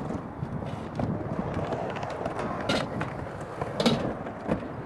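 Wheels rolling over skatepark concrete and ramps, a steady rumble broken by several sharp knocks and clacks.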